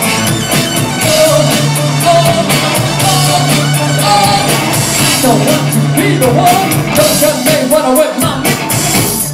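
Loud live rock band performance with sung vocals over a driving beat of drums and cymbals and a steady held low bass note, recorded from within the crowd.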